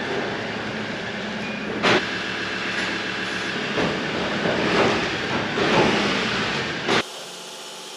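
Pickup towing a double-axle cattle trailer across a concrete floor: the engine running with the trailer rumbling and rattling behind it, a sharp clunk about two seconds in, and swells of noise as it pulls. The sound drops away suddenly about a second before the end.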